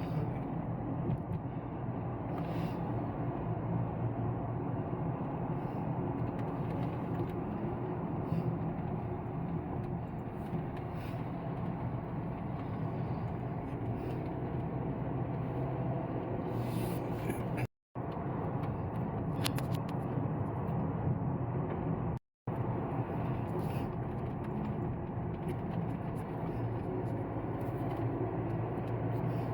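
A car driving along a road: engine and tyre noise running steadily as a continuous low rumble. It cuts out briefly twice, about two-thirds of the way through.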